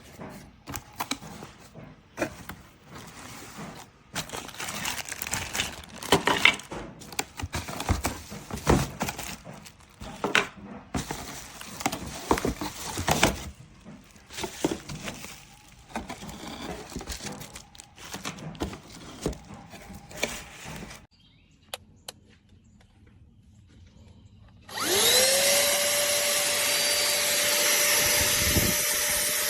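Irregular clicks, knocks and scraping for about twenty seconds, then a short lull. Near the end the Pemacom cordless handheld vacuum's motor switches on, its whine rising quickly, then running loud and steady.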